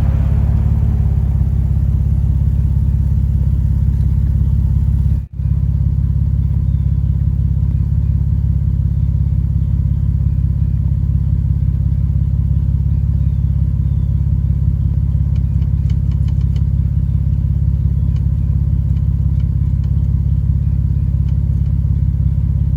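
Car engine idling steadily through a jump-start, with a brief dropout about five seconds in.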